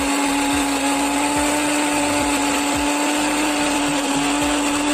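Electric mixer-grinder running steadily at one pitch, puréeing boiled carrots in milk in its jar.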